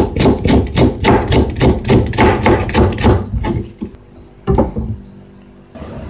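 Kitchen knife slicing a Japanese long green onion thinly on the diagonal against a cutting board: quick, even chops at about four a second, stopping after a little over three seconds. A single knock follows about a second later.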